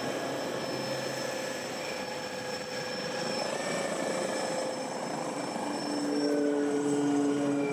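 Electra One electric light aircraft taxiing: propeller noise with a steady whine from its electric motor, growing louder about six seconds in as it comes close.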